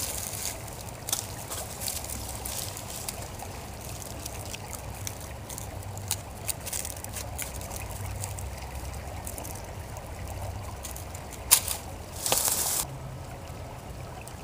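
Dry leaves and a papery wasp-nest comb crackling and rustling as hands handle and break it apart, over the steady trickle of running water. Near the end come a sharp crack and a short, louder rustle.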